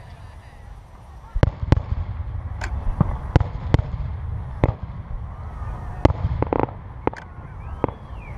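Aerial fireworks shells bursting in a rapid series of about a dozen sharp bangs over a low rumble, starting about a second and a half in. A brief honk sounds about two-thirds of the way through.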